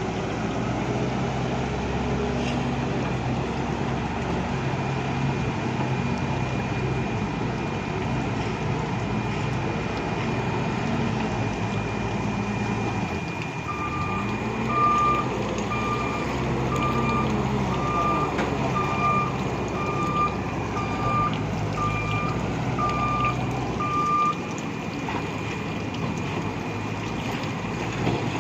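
Bull backhoe loader's diesel engine running, its pitch rising and falling now and then under load. About halfway through a reverse alarm starts beeping roughly once a second and stops after about ten seconds.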